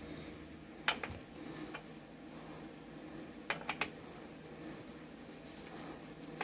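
A few sharp light clicks against faint room noise: one about a second in, then three in quick succession a little past the middle. These are handling sounds as a pool-ball 8-ball shift knob is fitted and threaded onto a truck's shift lever.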